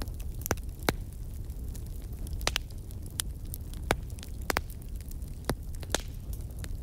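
Crackling fire: a steady low rumble with irregular sharp pops, about ten of them.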